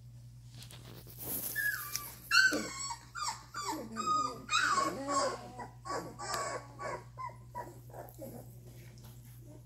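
Very young Doberman puppies whimpering and whining: a run of short, pitched cries that rise and fall, starting about a second in and tapering off near the end.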